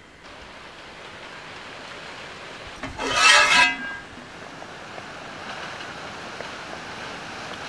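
Water boiling hard around whole potatoes in an aluminium pot, a steady bubbling hiss. About three seconds in, a short loud pitched honk lasting under a second cuts across it.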